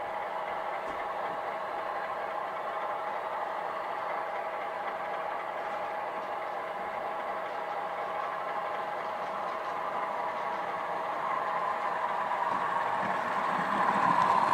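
Model train running on the layout: a steady sound with several held tones that grows louder over the last few seconds.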